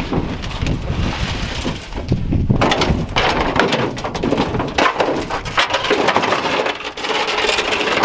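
Crunching and crackling of footsteps and shattered debris underfoot, with many sharp clicks, over wind buffeting the microphone.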